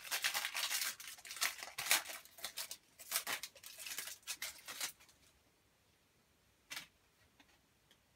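Match Attax trading-card pack wrapper being torn open and crinkled: a dense run of crackles for about five seconds, then one short rustle near seven seconds in.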